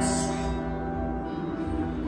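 Acoustic guitar chord ringing on and slowly fading after a strum.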